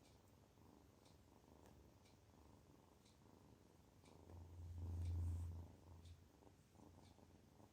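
Kitten purring softly with contentment, a faint low rumble that swells louder for about a second and a half midway through.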